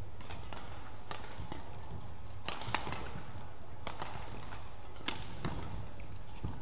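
Badminton rally: rackets striking the shuttlecock, several sharp cracks roughly a second apart, over a low steady hum.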